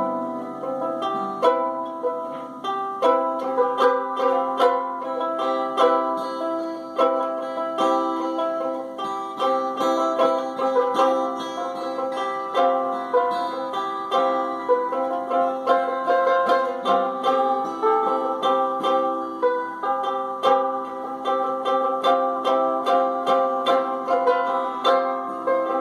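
A plucked string instrument playing an improvised melody: a continuous run of picked notes that ring into one another.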